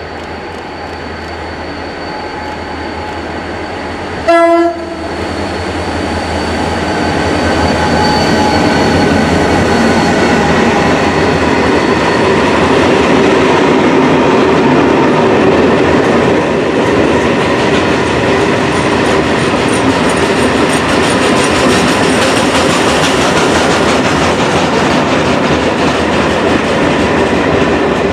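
Renfe Class 333 diesel locomotive giving one short horn blast about four seconds in. It then runs past hauling a freight train of covered steel-coil wagons, whose wheels rumble and clack over the rail joints, growing loud from about six seconds on and staying loud.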